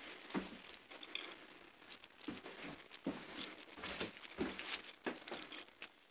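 Footsteps of a person walking, a soft step roughly every half-second to second, with rustling from the hand-held phone.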